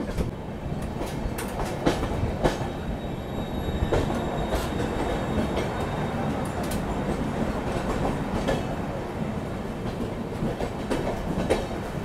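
Passenger train running slowly, heard from an open coach door: a steady rumble of the wheels on the track with sharp, uneven clicks from the rails and joints.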